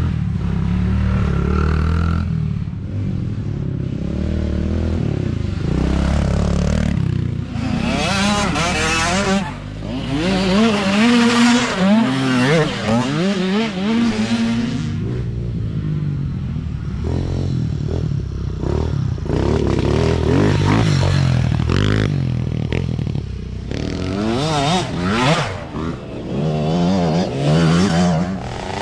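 Several mini dirt bike engines revving up and down together, their pitches rising and falling and crossing one another as the bikes ride past and accelerate.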